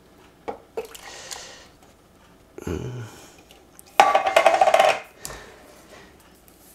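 Canned whole peeled tomatoes being tipped out of a metal can into a slow-cooker crock: a few light clinks from the can, then a soft wet plop as the tomatoes land. About four seconds in comes a louder clattering rattle lasting about a second.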